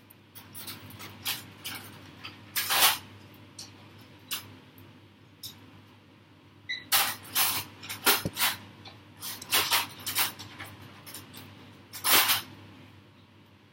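Irregular sharp taps and slaps of hands striking each other as a person signs, in scattered clusters, the loudest about three seconds in and again near the end.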